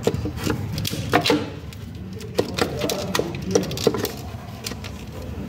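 Irregular clicks and taps of a new crankcase breather (anti-chama) part being worked into place by hand on the engine, a dozen or so sharp knocks at uneven intervals over a steady low hum.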